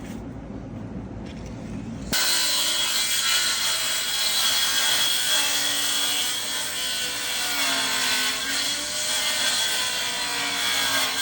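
A power saw cutting wood, its motor tone dipping and recovering under load. It starts abruptly about two seconds in, after a low rumble.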